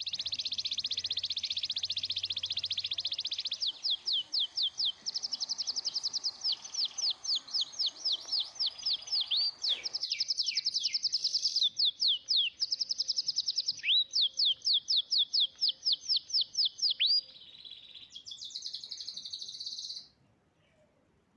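A songbird singing in long fast trills and runs of high chirps, many of them sweeping down in pitch and repeated several times a second, with short breaks between phrases. The song stops shortly before the end.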